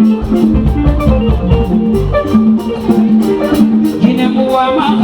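Band music between sung lines: an instrumental passage with a melodic lead of short held notes over drums, with a regular beat of cymbal strikes.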